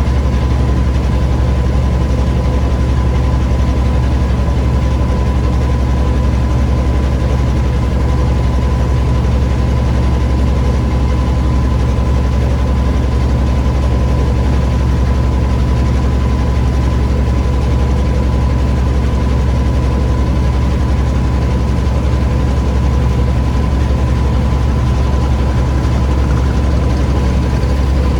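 Boat engine running at a steady speed: a loud, low, unchanging drone with a thin steady whine above it.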